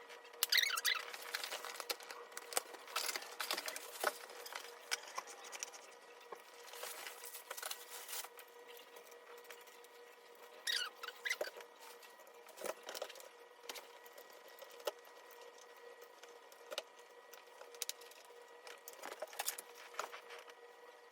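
Scattered soft clicks, taps and rustles at irregular intervals, over a faint steady hum.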